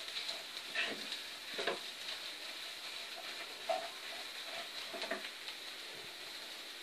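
Wooden spoon stirring and scraping mashed potato and fried onion around a non-stick frying pan, over a steady low sizzle of frying oil. The scrapes come irregularly, about one every second or so.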